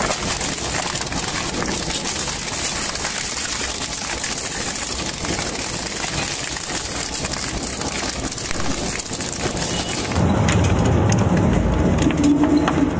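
Twin-shaft shredder crunching up bicycles: a dense, continuous crackle of metal frames, spokes and tyres snapping between the cutter discs. About ten seconds in it changes suddenly to a louder, deeper, steady drone with a hum as a shredder chews a rubber piece.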